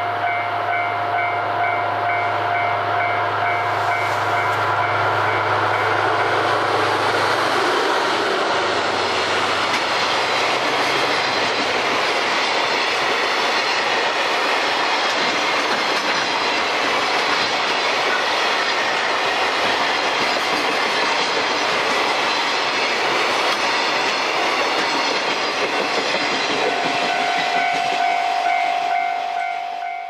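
A train passing over a level crossing: a long, loud rush of wheel-on-rail noise with clickety-clack. A steady warning tone, the crossing bell, rings at the start and stands out again near the end as the train noise thins.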